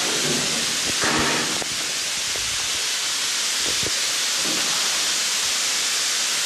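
Steady, loud hiss with no clear rhythm, with a brief muffled voice near the start and again about a second in.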